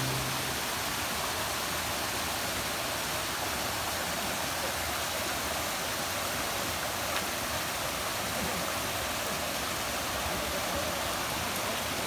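Steady rush of a waterfall and the rocky stream below it, with background music fading out at the very start.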